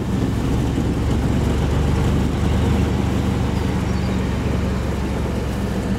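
Pickup truck's engine running steadily as the truck drives across a field, a low even hum under rough rushing noise.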